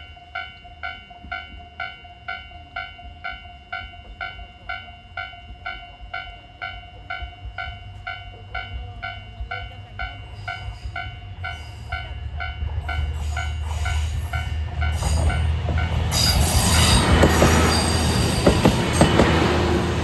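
Japanese level-crossing warning bell ringing in a steady repeat of about two and a half strikes a second, its electronic tone distorted and cracking. A train comes closer from about halfway through and passes loudly over the last few seconds with rumbling wheels and rail-joint knocks, covering the bell.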